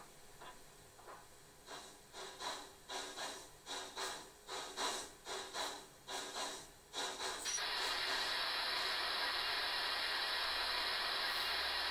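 ESU DCC sound decoder in a 1:24 scale Class 59 Garratt model playing steam exhaust chuffs in a steady rhythm, about two a second. About seven and a half seconds in, the chuffs stop and a loud, steady steam hiss takes over.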